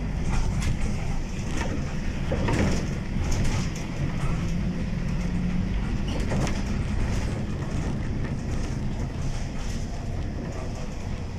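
City bus driving along a wet street, heard from inside the cabin: a steady engine and road rumble with tyre hiss and scattered short rattles from the bus interior.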